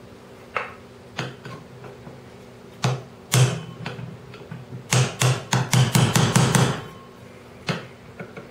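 Hammer tapping the handle of a flat-bladed screwdriver whose blade is set under the black end cap of a SureShade actuator tube, working the cap off. A few spaced taps, then a quick run of about ten taps about five seconds in, and one more near the end.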